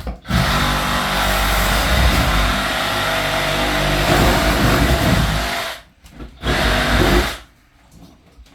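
Cordless circular saw running and cutting for about five and a half seconds, stopping, then a second short burst of about a second.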